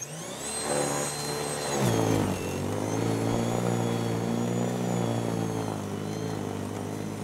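EGO+ 56-volt battery-powered single-stage snow blower's electric motor spinning up with a rising whine. About two seconds in its pitch drops as the auger takes on heavy, deep snow, and it then runs steadily under load.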